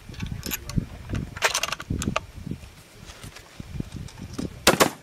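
Outdoor wind buffeting the microphone with low irregular thumps, broken by a few short metallic clicks, and a sharp loud double crack near the end.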